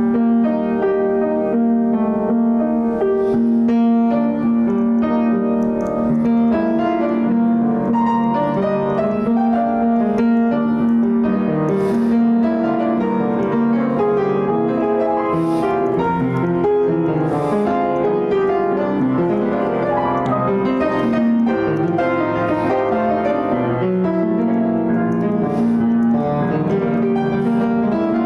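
Upright piano played solo: a melody over chords, the notes ringing into one another.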